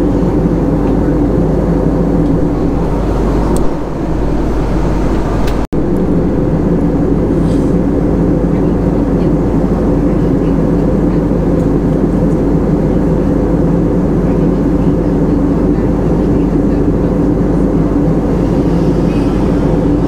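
Steady cabin drone of an Airbus A320-family jet airliner in flight: engine hum and rushing airflow, cutting out for an instant about six seconds in.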